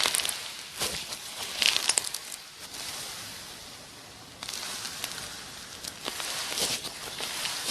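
Slime being squished and pulled, with wet crackling and sharp little pops of air, a quick run of pops about two seconds in. A little past halfway the sound changes suddenly to a softer, steadier crackle.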